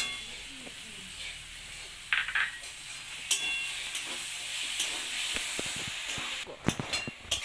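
Tomato chutney with sugar and jaggery sizzling in a kadai while a spatula stirs it, with a steady hiss. The spatula scrapes and clicks against the pan now and then, with a quick run of knocks near the end.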